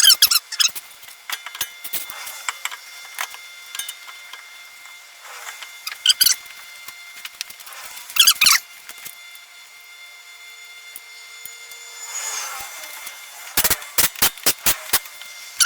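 Hand tools working on the front brake caliper bolts: intermittent squeaks and sharp metallic clicks, then a quick run of about eight clicks near the end.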